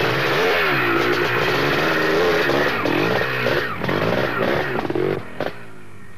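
KTM enduro motorcycle engine revving hard, pitch rising and falling as the rider fights up a churned-up muddy climb with the rear wheel spinning. It cuts off abruptly about five seconds in, leaving a quieter background.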